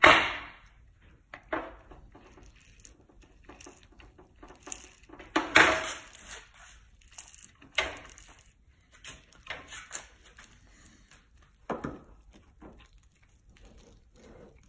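Handling noises of gloved hands working a resin-wetted carbon fiber wad out of a metal trough and into an aircraft control surface's trailing edge: scattered knocks and bumps with rustling in between. The loudest knocks come right at the start and about five and a half seconds in.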